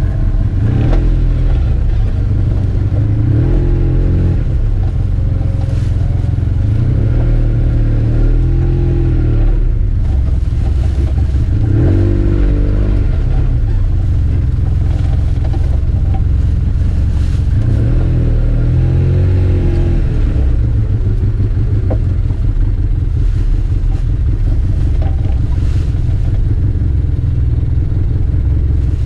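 Arctic Cat Wildcat 700 Trail side-by-side's engine running as it is driven over a dirt trail, revving up and easing off several times.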